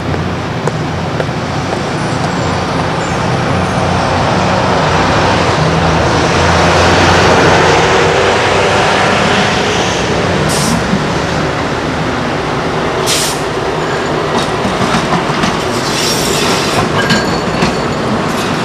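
Articulated light rail car running over junction trackwork: a rumble and clatter of wheels over switches and crossings that builds to its loudest about halfway through as the car passes. Later come a few short, sharp high-pitched screeches and scattered clicks from the wheels on the rails.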